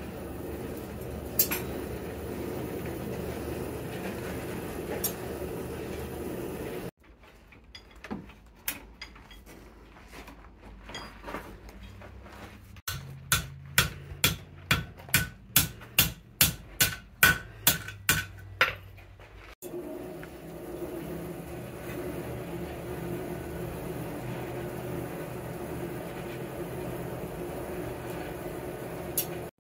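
Hand hammer striking a red-hot horseshoe on an anvil in a steady run of about a dozen blows, roughly two a second, which are the loudest sounds. Before and after the hammering, a steady rushing drone from the lit coal forge.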